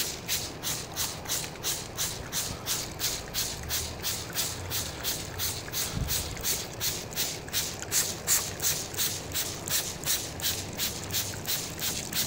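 Hand trigger spray bottles squirting water in quick, even pumps, about three to four sprays a second, each a short hiss.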